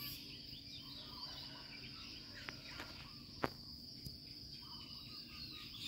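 Outdoor ambience of insects with a steady high drone, and birds chirping now and then. A few sharp clicks cut through, the loudest about three and a half seconds in.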